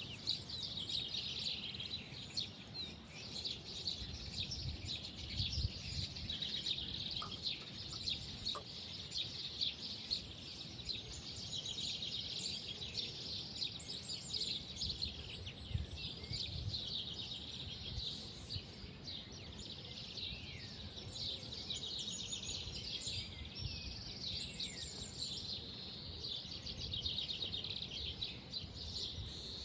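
Many birds chirping and singing at once in a continuous, overlapping chorus of short high calls, over a low uneven rumble.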